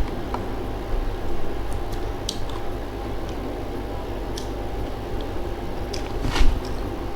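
A person chewing and eating food with soft wet mouth sounds and a few small clicks, with one louder bite about six and a half seconds in.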